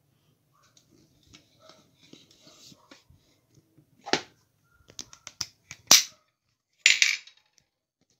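Kitchen things being handled on a countertop: scattered sharp clicks and knocks, with a knock about four seconds in, a quick run of clicks just after five seconds, and the loudest clack and short clatter around six and seven seconds.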